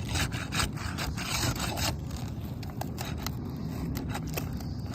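Irregular scraping and rubbing against asphalt roof shingles, a run of short uneven scrapes and crackles over a low rumble.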